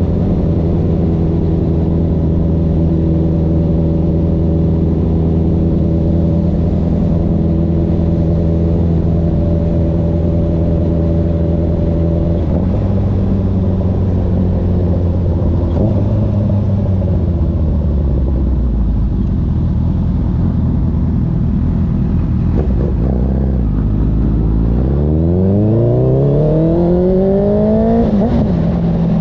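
Honda CB1000R's inline-four engine through a CS Racing full exhaust system while riding. It holds a steady pitch for about twelve seconds, then falls away as the bike slows, and near the end rises sharply under hard acceleration before dropping at a gear change.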